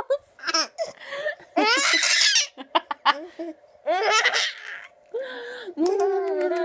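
A toddler and a woman laughing together in several short bursts, with a longer held voice near the end.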